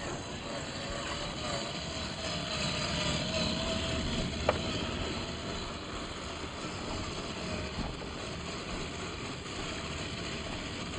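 FMS 1/10-scale Toyota Land Cruiser FJ40 RC crawler driving: a faint electric-motor and gear whine that wavers in pitch over a steady rushing noise. A single sharp click comes about four and a half seconds in.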